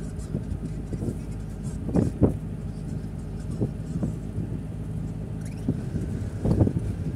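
Engine and road noise heard from inside a moving car's cabin: a steady low hum, with a few brief louder sounds about two seconds in and again near the end.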